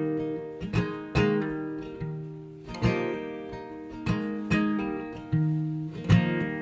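Background music: acoustic guitar strumming chords that ring and fade, as the instrumental lead-in to a song.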